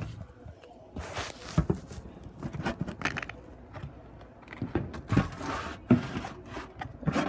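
Handling noise from plastic bottles and a plastic bowl being picked up and moved: irregular scrapes, knocks and rustles, with a few sharper clicks.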